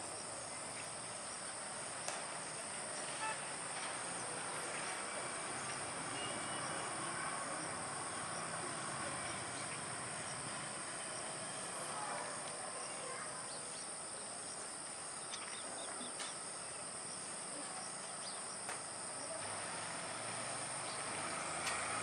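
Steady high-pitched insect chirring, like crickets, over outdoor background noise, with a few faint clicks.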